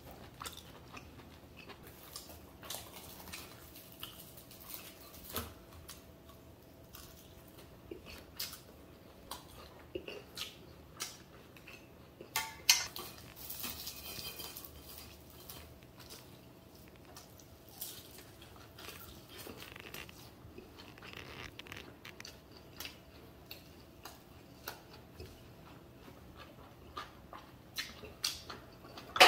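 Eating sounds: scattered small clicks of chopsticks against plates and dishes, with soft chewing between. A louder clatter comes about halfway through.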